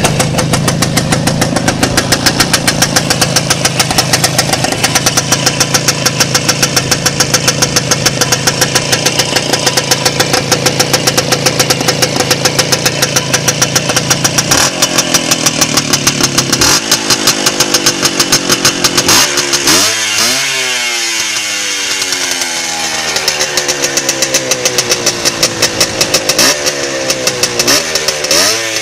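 WSK 175's single-cylinder two-stroke engine running on a Hall-effect contactless ignition, idling with a steady regular beat. From about two-thirds of the way in it is revved several times, the revs falling back after each rise.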